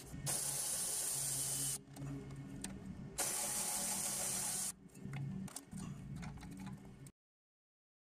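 Milwaukee cordless impact wrench hammering in two bursts of about a second and a half each, loosening bolts on a Lexus RX350 rear brake caliper.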